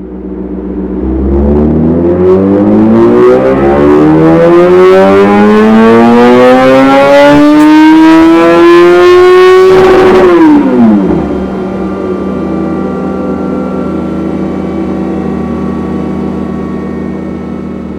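Yamaha XJ6N's 600 cc inline-four on a dyno run, its exhaust note climbing steadily in pitch under full throttle for about ten seconds. Then the throttle closes and the revs fall quickly, settling into a steady, quieter hum.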